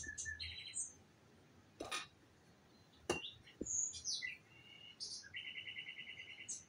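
Small songbirds chirping and trilling, ending in a fast, evenly pulsed trill in the last second and a half. Two sharp knocks come about two and three seconds in.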